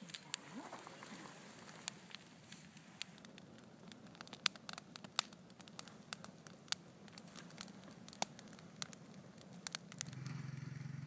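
Campfire crackling: irregular sharp pops and ticks from burning logs. A low, steady engine hum comes in near the end.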